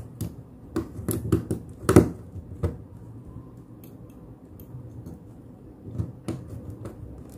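Small screwdriver turning in the screw terminal of a TPA3118 amplifier board to clamp a wire, with scattered sharp clicks and taps of the tool, board and wires, most of them bunched about a second or two in and again near six seconds.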